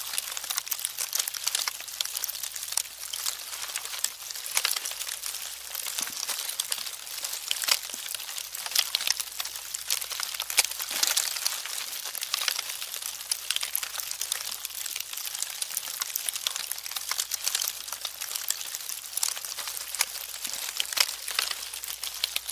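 Termites: a dense, irregular crackle of fine clicks and ticks that runs on steadily, with a few louder ticks standing out.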